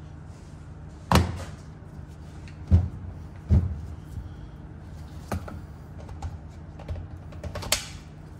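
Scattered sharp knocks and clunks of parts and hand tools being set down and tapped during wheel-bearing and hub work, five or six in all, the loudest about a second in and just under three seconds in, over a low steady hum.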